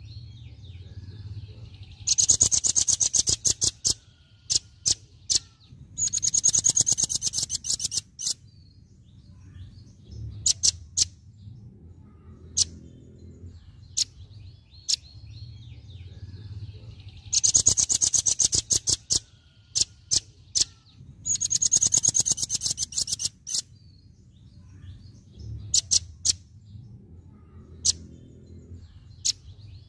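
Velvet-fronted nuthatch singing its rapid 'tembakan' burst song: four very fast, high staccato trills of about two seconds each, coming in two pairs, with single sharp notes scattered between them.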